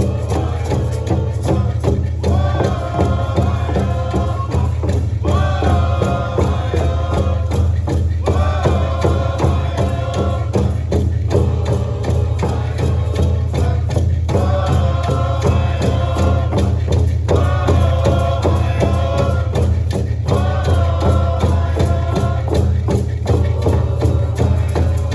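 Live music with fast, dense percussion under a melodic phrase that repeats about every three seconds over a steady low drone.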